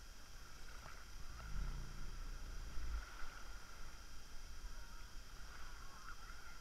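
Small sea waves sloshing and splashing around a camera held at the water's surface, with a low rumbling buffeting in the first half.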